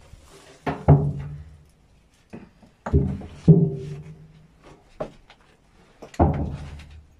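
Hollow booming knocks as a person climbs through a narrow opening in a heavy metal door, body and boots bumping the panel. There are four main knocks, each followed by a short low ring from the door.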